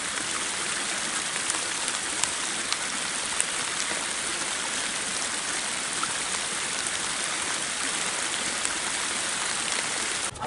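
Steady hiss of rain falling in woodland, with scattered faint ticks of drops.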